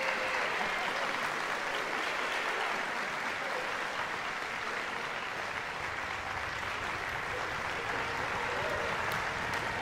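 Concert audience applauding steadily after the piece ends.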